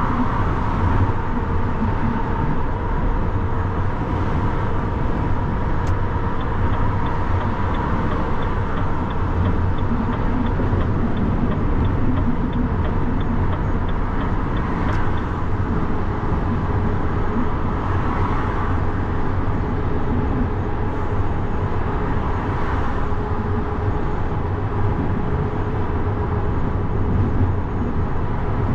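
Lorry driving at speed on the autobahn: a steady drone of engine and road noise with a strong low hum. A faint, rapid, even ticking runs for several seconds partway through.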